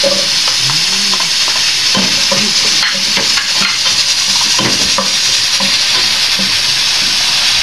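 Chopped onions and garlic sizzling loudly in a hot stainless steel pot, a steady frying hiss, while a wooden spatula stirs them with repeated scraping clicks and knocks against the pot.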